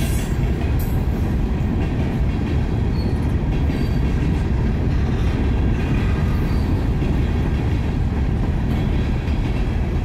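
Freight train cars of a manifest train rolling past: a steady, loud rumble of wheels on rail, with a few faint brief high squeals from the wheels.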